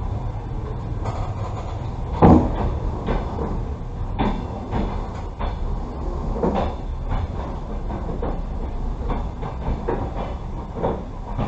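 Passenger train carriage rumbling slowly, with irregular heavy clunks and knocks, the loudest about two seconds in.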